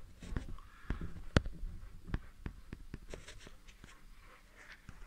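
Irregular light clicks, taps and scraping of hands handling plastic bottles, with one sharper tap about a second and a half in and softer rustling later.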